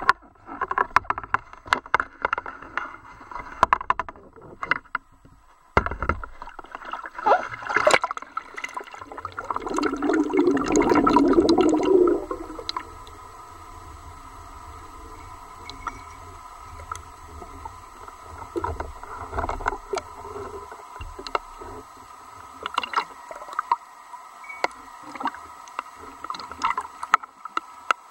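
Seawater sloshing and knocking against a camera rig at the surface, then muffled underwater sound: a loud rush of bubbling about ten seconds in, followed by a steadier low bed of water noise with a faint steady tone and scattered sharp clicks.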